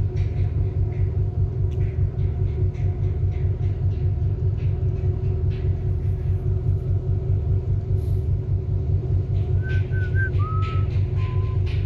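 Steady low rumble of a vessel under way, its engine droning with a steady hum over it. Near the end come a few short, high whistled notes.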